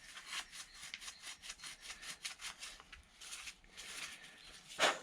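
Rapid back-and-forth rubbing strokes of a small throttle-linkage part being scrubbed clean by hand, then a single sharp click near the end.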